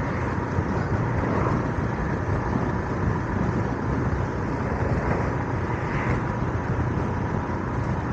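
Steady wind rush and road noise from riding a Royal Enfield Himalayan 411 motorcycle at about 40 mph in fourth gear with the helmet visor open, with the bike's single-cylinder engine running evenly underneath.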